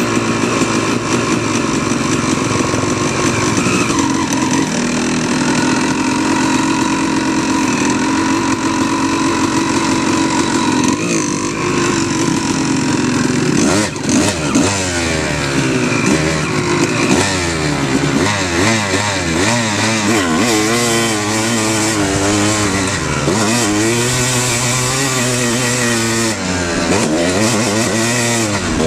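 Off-road motorcycle engine running under way, holding fairly steady revs at first, then from about halfway through rising and falling again and again with the throttle.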